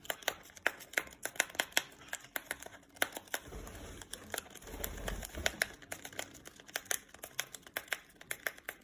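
Paper packaging of a tea bag being crinkled and torn open by a pet, a quick irregular run of small crackles and ticks.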